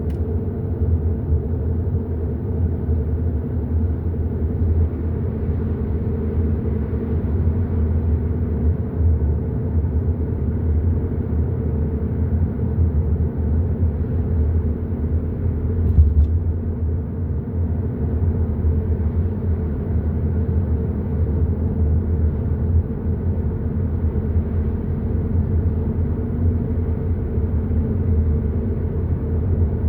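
Hyundai i30 N Line driving at a steady pace, a constant low rumble of engine and road noise. A single short knock about 16 seconds in, like the car going over a bump.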